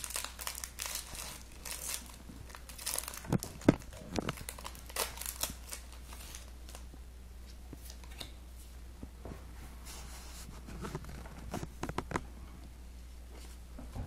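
Foil wrapper of a Pokémon trading-card booster pack being torn open and crinkled in the hands, in irregular crackles, busiest in the first few seconds and again near the end.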